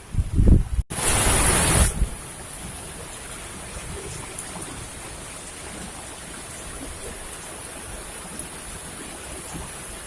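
Rain falling in a steady hiss. In the first two seconds the microphone is buffeted by wind gusts, then a louder stretch of hiss lasts about a second before the rain settles to an even level.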